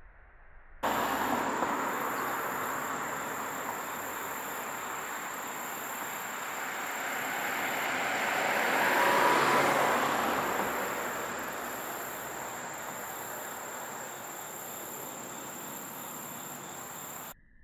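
Outdoor ambience: a steady high insect trill over a broad rushing noise that swells to a peak about halfway through and then fades. The sound cuts in abruptly about a second in and cuts off abruptly near the end.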